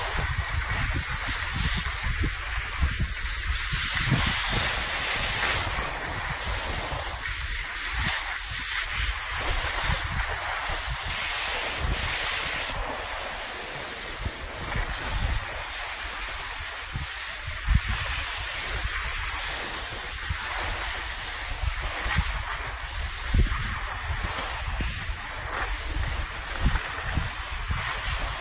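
Wind buffeting the phone microphone while skiing downhill, over a steady hiss of skis sliding on packed snow, with scattered short low thumps.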